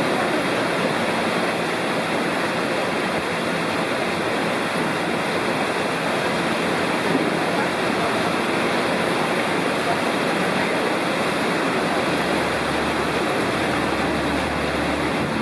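Steady rush of water pouring down a salmon fish ladder into a pool packed with returning salmon that churn the surface.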